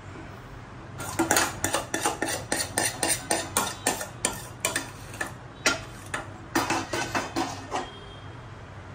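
Steel ladle scraping and knocking against a cooking pan, scooping out leftover masala gravy: a quick run of metal clinks and scrapes, about three or four a second, that starts about a second in and stops near the end.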